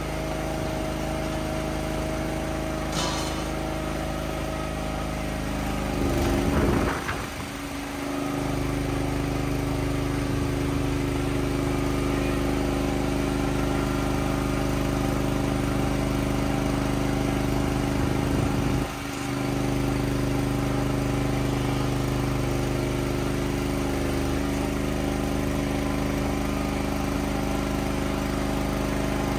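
Motor of a small ride-on calf milk-feeding cart running steadily. About six seconds in it briefly gets louder and its pitch shifts, and it dips for a moment around nineteen seconds.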